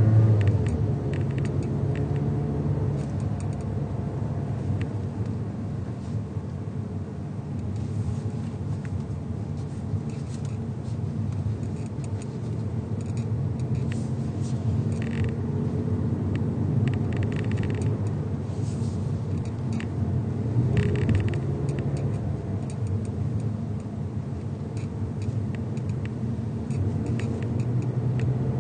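2022 Mazda3 running and driving, with a steady low engine and road rumble whose tone slowly rises and falls. Light ticks and brief hisses come and go through it: the abnormal noise the owner is trying to capture, not identified.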